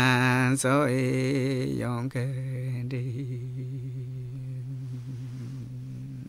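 Male voice chanting an icaro, an Amazonian shamanic sacred song: a low held note that wavers for the first two seconds, then steadies and slowly fades.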